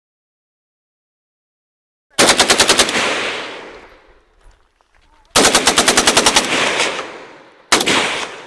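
Automatic firearm fired in three bursts of rapid shots, each burst trailing off in an echo. The first two bursts last about a second each and the third is short, near the end.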